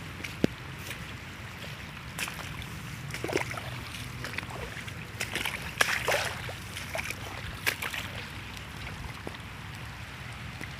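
Steady low rush of a flood-swollen river, with scattered light clicks and a few brief chirps over it.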